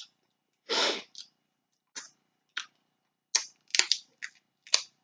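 Snow crab legs being cracked and eaten: one short breathy sound about a second in, then a run of sharp cracks and clicks of shell.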